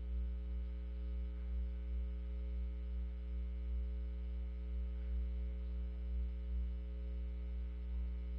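Steady electrical mains hum with a stack of overtones, low and unchanging; no other sound stands out above it.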